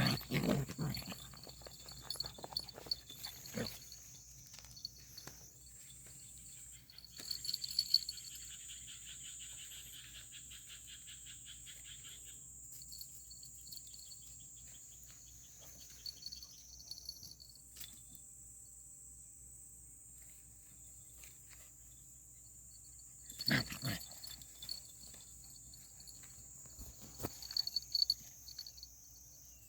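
Puppies play-fighting: short growls and yelps, loudest near the start and again after about 23 seconds, with quieter stretches between, over a steady high-pitched whine.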